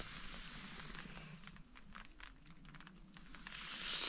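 Rain falling on a tent: a soft, steady hiss with many small ticks of drops, growing a little louder near the end.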